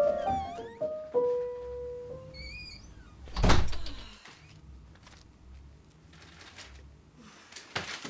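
Soft score music with sustained keyboard notes ends in the first second, then a door shuts with a single heavy thunk about three and a half seconds in, followed by quiet room tone.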